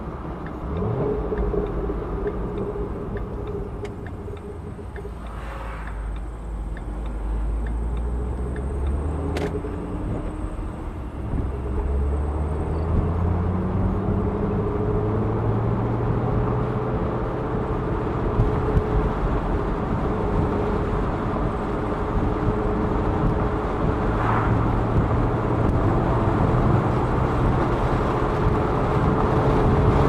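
Shelby GT500's supercharged V8 heard from inside the cabin under tyre and wind noise. The engine note climbs several times through the gears in the first dozen seconds, then holds fairly steady while the car cruises and gradually grows louder. There is a single sharp click about nine seconds in.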